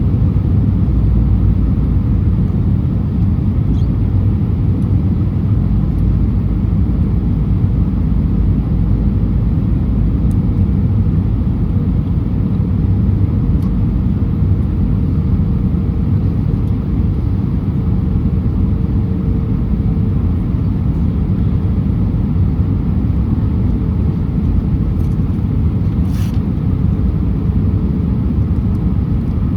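Steady rumble of an Airbus A319 in flight: engine and airflow noise, with a faint steady hum in the middle stretch.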